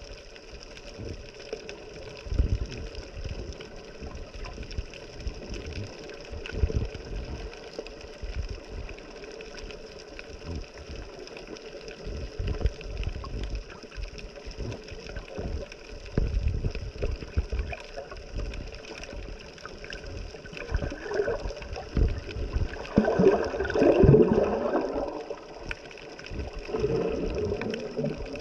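Water sloshing and gurgling close to the microphone, with irregular low thumps and a louder gurgling stretch a little before the end.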